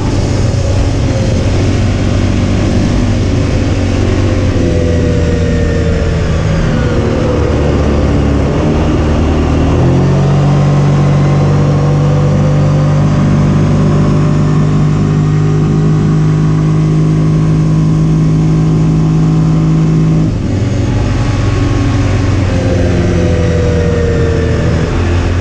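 CFMOTO UForce 500 side-by-side's single-cylinder engine running steadily under way on a gravel road, heard from inside the open cab. About ten seconds in, the engine speed steps up and holds at a higher pitch for about ten seconds, then drops back.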